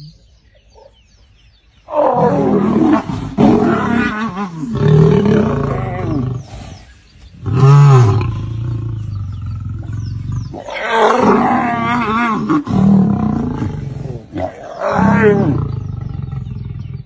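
Lion roaring and growling: a series of loud, deep calls that rise and fall in pitch, beginning about two seconds in after a quiet opening.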